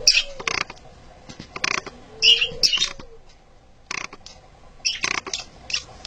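Budgerigar laying an egg, giving short scratchy squeaks in clusters, with two higher squeaks about two and a half seconds in and a quieter gap after them.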